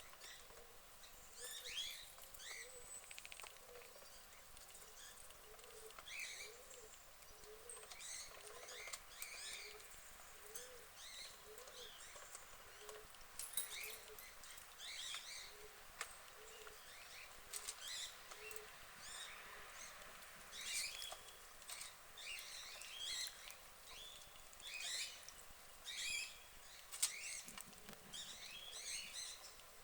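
Birds chirping: many short, high calls scattered throughout, over a faint, evenly repeating low blip.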